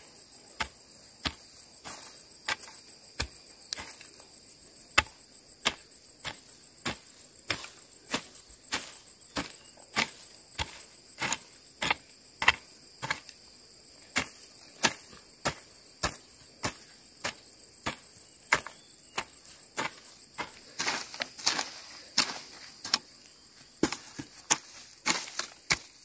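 A hand hoe chopping into dry soil in steady strokes, about one and a half a second, coming faster and harder near the end. A steady high insect trill, like crickets, runs behind.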